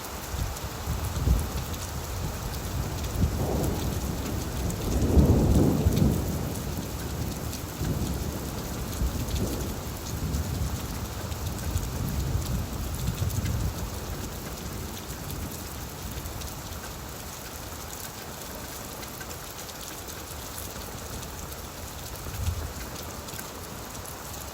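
Steady rain falling on leaves, with a rolling rumble of thunder that builds over the first few seconds, is loudest about five seconds in and fades out by about fourteen seconds.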